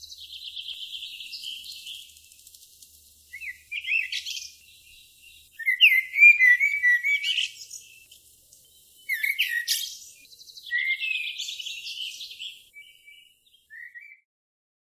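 A songbird singing in short separate phrases of chirps, whistles and rapid trills, with pauses between them. It stops about a second before the end.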